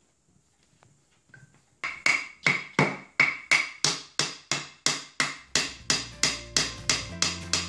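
Hammer striking a steel rod held against a mini lathe's headstock, about three sharp metallic blows a second, starting about two seconds in. Background music comes in low under the blows near the end.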